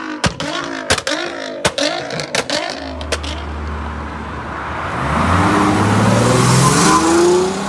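Nissan GT-R engine blipping, with a run of sharp exhaust pops and cracks. About three seconds in, a Ford Mustang's engine takes over at a low idle, then accelerates from about five seconds in, its note rising and growing louder.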